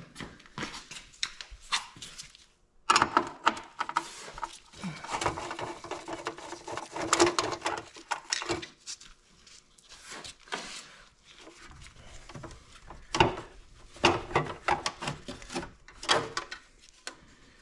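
Scattered clicks, taps and rattles of hand tools and small metal bolts and screws being handled while the chrome trim ring is unbolted from a motorcycle's front wheel, with rustling between the clicks.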